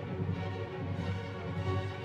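Orchestral background music with sustained strings over a low pulsing bass.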